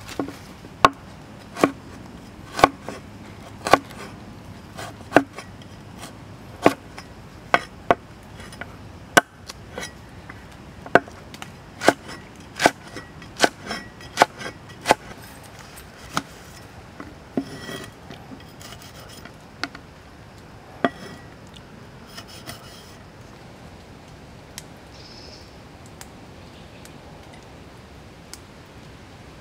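Meat cleaver chopping on a wooden board: a run of sharp chops about one a second, thinning out after about fifteen seconds and stopping about two-thirds of the way through.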